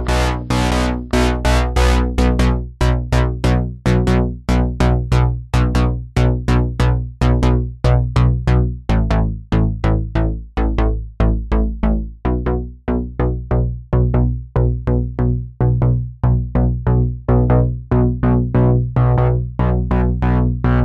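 Background music: electronic synthesizer music with a steady bass and a fast repeating keyboard pattern.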